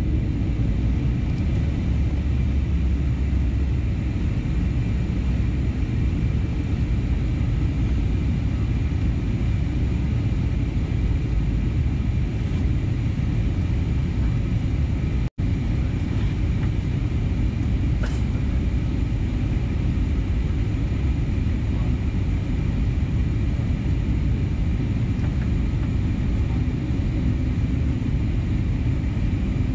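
Cabin noise inside an Airbus A320neo airliner in flight on descent: a steady rumble of engines and airflow, with a few faint high steady tones above it.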